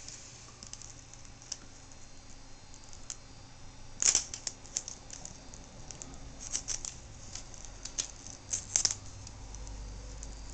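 Small sharp clicks and scratching from working a laptop screen's ribbon-cable connector and its tape by hand and with a small tool, as the connector is unplugged and pushed back in. The loudest click comes about four seconds in, with more in little clusters later.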